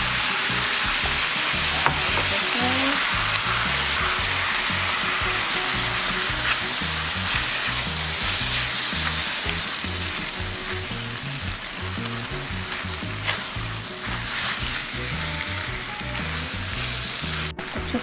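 Squid and vegetables frying in oil in a pan: a steady sizzle while a spatula stirs them through a red chili-paste sauce, with a few light scrapes. The sound cuts out briefly near the end.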